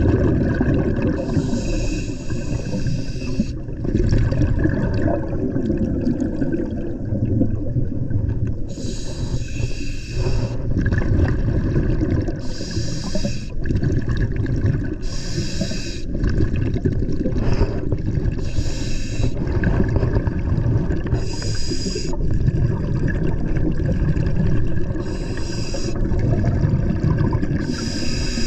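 Scuba diver breathing through a regulator underwater: a hissing inhalation every few seconds, about eight in all, over a continuous low rumble of exhaled bubbles and water noise.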